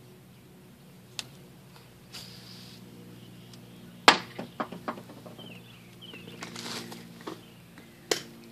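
A few sharp clicks and knocks, the loudest about four seconds in with a quick run of smaller ones after it, over a steady low hum, with faint bird chirps.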